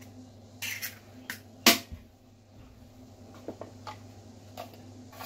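Kitchen handling sounds: an egg's shell pulled apart over a glass bowl of flour with a few soft clicks, one sharp knock about a second and a half in, then light taps as a plastic salt container is picked up. A steady low hum runs underneath.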